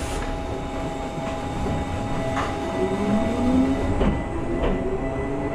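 Gakunan Railway 7000-series electric railcar pulling away: its motor sound rises steadily in pitch as it picks up speed over a steady rumble. The wheels click sharply three times over rail joints and points.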